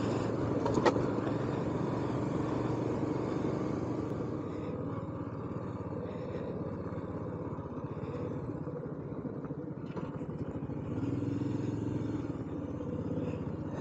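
Royal Enfield Himalayan's single-cylinder engine running steadily under way on a gravel track, with wind and tyre noise. There is a sharp click about a second in.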